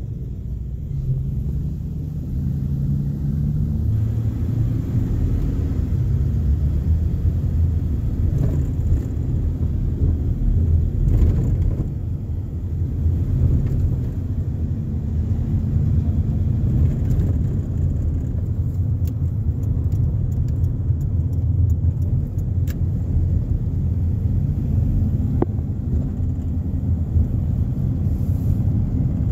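Car engine and road rumble heard from inside the cabin as the car pulls away and drives along a city street. The engine note rises over the first few seconds as it accelerates, then settles into a steady low rumble.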